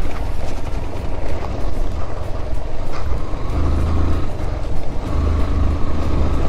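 Yamaha FZ-S V3's single-cylinder engine running as the motorcycle rides over a loose dirt and gravel track. The low rumble swells twice, about three and a half and five seconds in.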